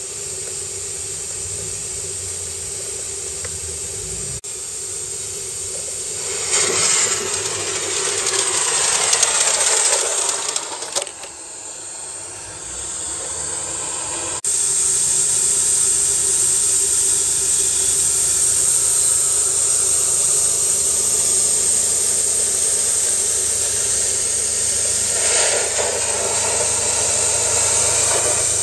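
Gauge 1 live-steam model of a DB class 01 locomotive (Aster) under steam: a steady hiss of escaping steam, with a louder, rougher passage of the engine working in the middle. The sound jumps abruptly twice, and the last part is a strong, even steam hiss heard close to the boiler.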